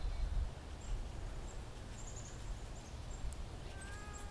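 Outdoor garden ambience: a small bird's high, short chirps in quick little runs now and then, over a low, uneven rumble.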